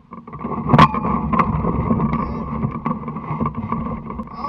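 Wind buffeting the microphone of a camera mounted on a hang glider's wing, a steady rushing noise, with scattered clicks and knocks from the glider's frame as it is walked to launch; one louder knock less than a second in.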